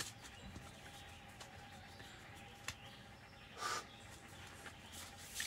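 Quiet outdoor background with a faint steady tone, two short clicks, and a brief rustle a little over three and a half seconds in as a card is drawn from an oracle deck.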